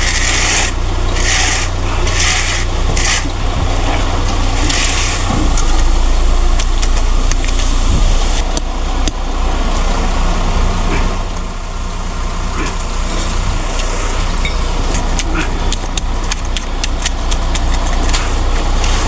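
Heavy equipment engine running steadily on a concrete jobsite. There are several short rushes of noise in the first five seconds, and a run of quick clicks and taps near the end.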